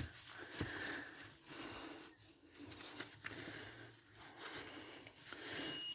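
Faint rustling and handling sounds of cleaning around an open fridge, in soft spells with a few light clicks. Near the end the fridge's door-open alarm starts beeping.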